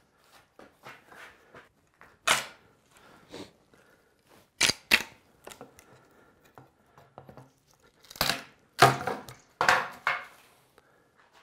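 Hunks of Osage orange belly wood cracking and tearing off a bow stave as a hatchet blade pries them loose between sawn slots. Irregular sharp cracks and splintering, with the loudest run of them near the end.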